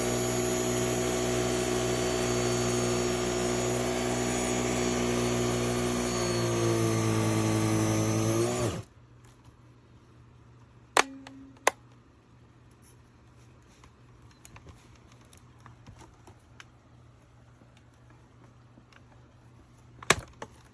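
Kenmore BU3040 two-motor upright vacuum cleaner running steadily, then switched off about eight and a half seconds in, its pitch dropping quickly as the motors wind down and stop. A few sharp clicks follow later.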